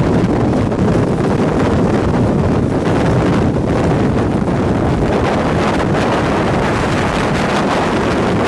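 Strong wind from a nearby tornado rushing and buffeting over the microphone, mixed with the steady noise of a moving vehicle. The noise is loud and even throughout, heaviest in the low range.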